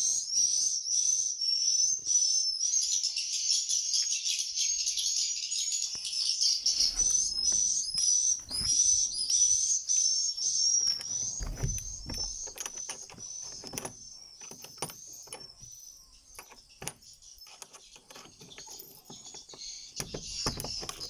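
Swiftlets calling: rapid high chirps repeated several times a second, dense for the first few seconds and thinning out later, with scattered sharp clicks and a few low rumbles.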